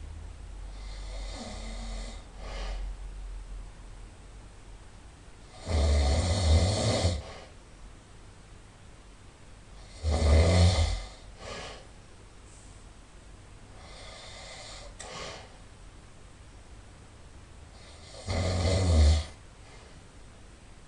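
A person snoring loudly in sleep: three loud snores, the second about four seconds after the first and the third about eight seconds later, with fainter breaths between them.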